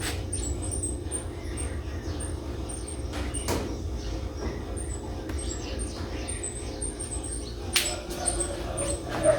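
Small birds chirping in many short, high calls over a steady low hum, with a couple of brief knocks.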